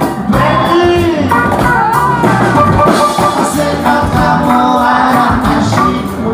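Live band music: a man singing a melody into a microphone over guitar accompaniment and a cajón beat.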